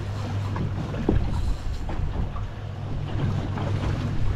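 Twin Mercury outboard motors idling with a steady low hum, under wind buffeting the microphone.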